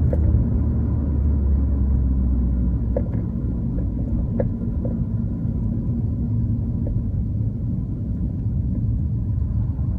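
Car driving, with a steady low road and running rumble. Several short clonks come from the suspension, the clearest about four and a half seconds in.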